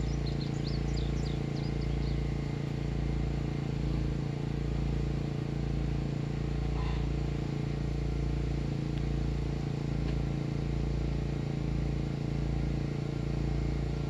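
Outdoor ambience dominated by breeze rumbling on the microphone, over a steady low hum. A few faint high bird chirps come in the first second or so.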